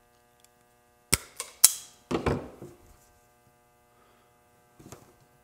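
Sharp plastic clicks and handling noise from a trailer wiring connector being picked up and handled: three quick clicks about a second in, a duller knock just after, and a softer click near the end. A faint steady electrical hum runs underneath.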